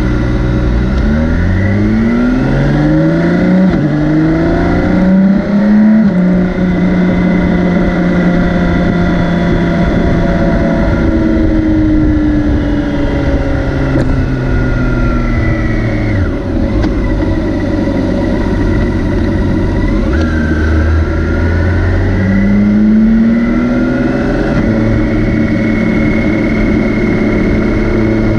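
BMW K 1600 B's 1649 cc inline-six engine under way, revving up in steps through the gears over the first several seconds, then holding a steady pitch. It drops off around the middle as the bike slows, and picks up again in the second half.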